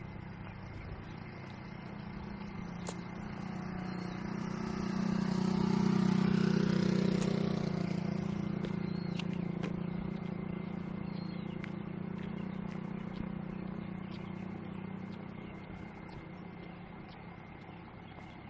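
An engine passing by: a steady low engine note grows louder, is loudest about six seconds in, then slowly fades away.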